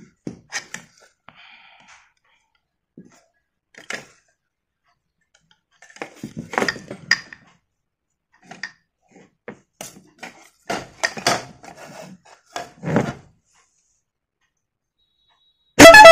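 Scattered clicks and knocks as the plastic trumpets, hoses and compressor of an electric twin-trumpet air horn are handled on a tiled floor. Near the end the horn comes on with a loud, steady multi-tone blast, sounding powerful now that its compressor motor's brushes have been greased.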